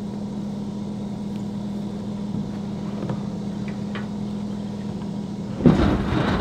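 Empty 160-pound plastic water tank tipped off a utility trailer, landing on the grass with a loud thump about five and a half seconds in, over a steady low hum.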